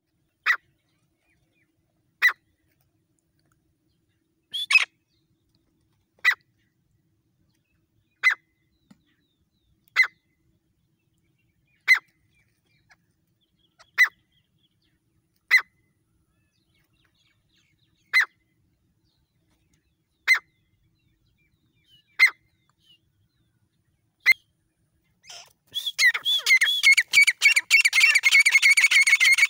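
Grey francolin calls: short sharp single notes about every two seconds. About 25 seconds in they break into a rapid, loud run of repeated calls.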